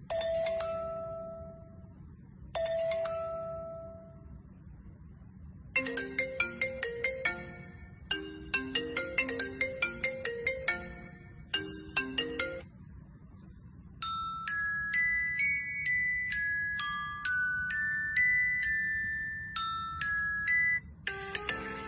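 Smartphone ringtones previewed one after another from the phone's tone list: two single ringing chime tones, then short quick melodies, then a higher tinkling tune, each clip cut off after a few seconds and followed by a short pause.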